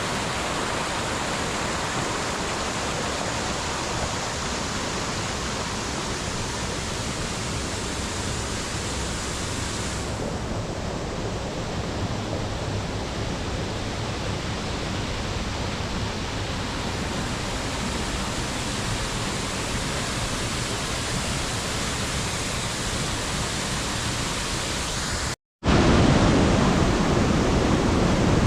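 Waterfall, a steady even rush of falling water. Near the end the sound drops out for a split second and comes back louder, with more low rumble.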